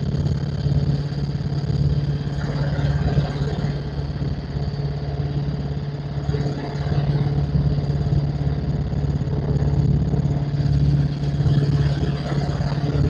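Helicopter in flight, heard from inside the cabin: a loud, steady low drone from the engine and rotor.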